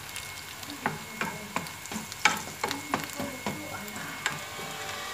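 Chopped onion sizzling in hot oil in a non-stick frying pan while a wooden spoon stirs it, knocking against the pan in a string of irregular taps starting about a second in.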